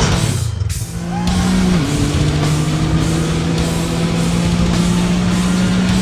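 Loud heavy rock music with guitar holding long steady notes that step down in pitch about two seconds in.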